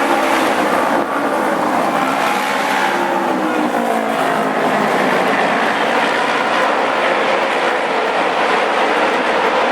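Several auto race motorcycles running together on the oval track, their engine notes overlapping and rising and falling in pitch.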